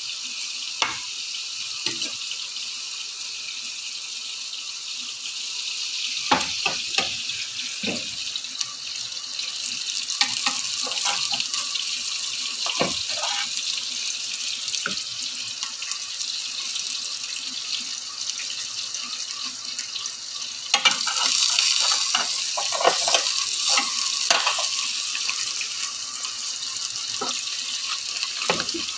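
Hot oil sizzling steadily as potato strips deep-fry, with scattered clinks and knocks of a skimmer and pans. The hiss grows louder for a few seconds about two-thirds of the way through.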